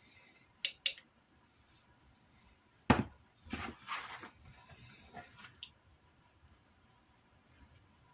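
Workbench handling sounds: two light clicks, a sharp knock about three seconds in, then leather pieces rustling and sliding on a cutting mat as they are turned over.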